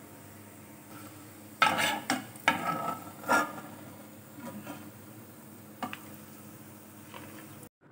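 Steel spatula scraping through fried bitter gourd and onion in a frying pan and knocking against the pan and plate as the food is lifted out of the oil. A cluster of loud scrapes comes between about one and a half and three and a half seconds in, followed by a few lighter taps.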